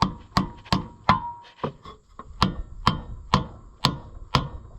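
Hammer blows tapping a large freeze plug into the block of an International LB gas engine, about ten sharp strikes at two to three a second with a short break near the middle.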